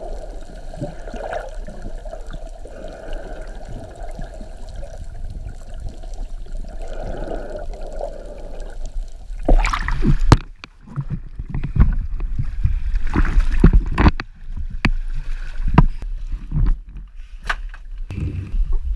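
Water sloshing and gurgling around the microphone, dull and muffled at first. About halfway through it turns into loud, irregular splashes and sharp knocks.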